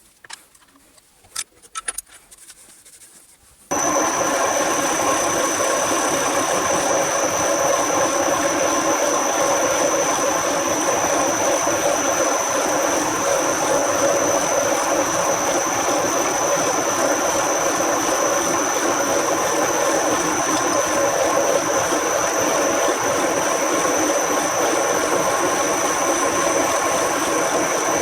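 A few quiet clicks, then a workshop machine tool starts abruptly about four seconds in and runs steadily with a constant high whine.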